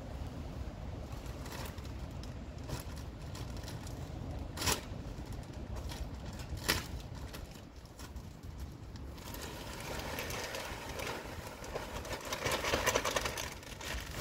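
Wind buffeting the microphone as a low rumble, with two short sharp taps. About nine seconds in, a plastic bag of potting substrate is tipped out onto a soil pile on a tarp: a rushing pour of soil and crinkling of the bag that builds and then fades.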